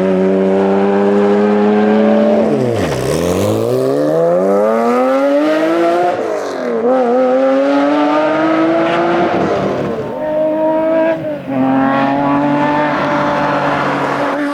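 Porsche Cayman's engine driven hard on a tarmac rally stage. The revs hold high, drop sharply about two seconds in, then climb through the gears, with quick dips at gear changes about six and ten seconds in and a brief lift off the throttle near eleven seconds.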